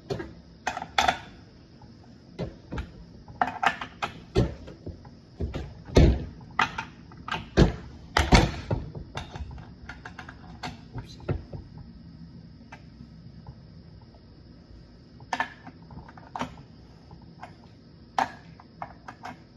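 Irregular clicks, taps and knocks from the chainsaw being handled, with its engine not running; the loudest knocks come about six and eight seconds in.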